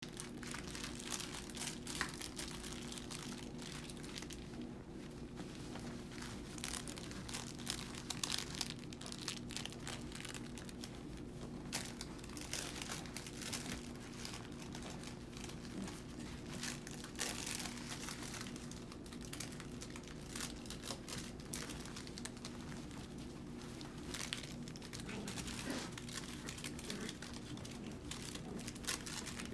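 Irregular crinkling and rustling as Double Doodle puppies walk and tussle on plastic-backed puppy training pads, over a steady low hum.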